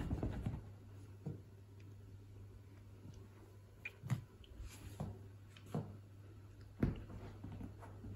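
Soft thumps and scuffs of a cat leaping, landing and pouncing on a cushioned sofa, with a soft fluffy ball being handled, heard as a handful of short separate knocks over a low steady hum.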